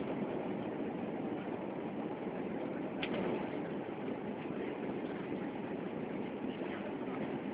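Steady cabin noise inside an Airbus airliner in flight: the jet engines and rushing air make a low, even rumble. There is one brief click about three seconds in.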